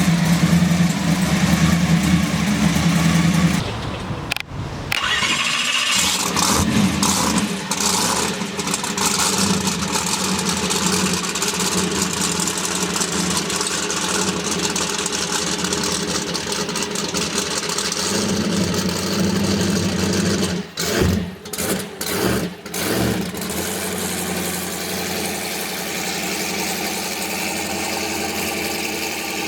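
Turbocharged drag race car engine running and revving, in several clips cut together with abrupt changes about four seconds in and again about three-quarters of the way through.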